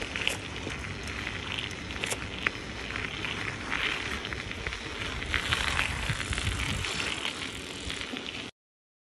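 Mountain bike on zip-on studded tire skins rolling across lake ice: a steady rolling noise with scattered sharp clicks. It cuts off suddenly near the end.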